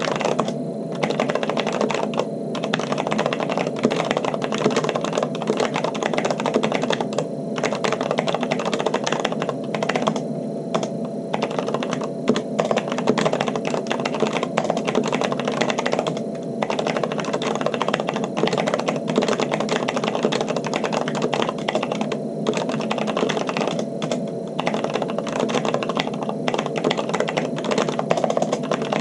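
Continuous fast typing on a Corsair K70 LUX RGB mechanical keyboard with stock, unlubricated Cherry MX Red linear switches and thick double-shot PBT keycaps, resting on a microfiber cloth. A dense stream of key strokes runs throughout, with brief pauses every few seconds.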